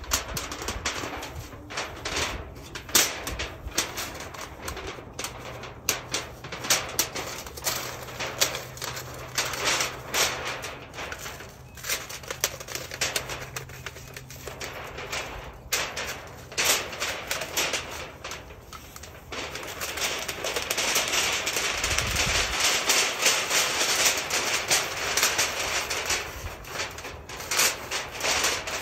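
Thin, flexible metal stovepipe being handled and collapsed for storage, giving many irregular sharp clicks and crinkling rattles of its metal. A denser rushing, scraping stretch comes about two-thirds of the way through.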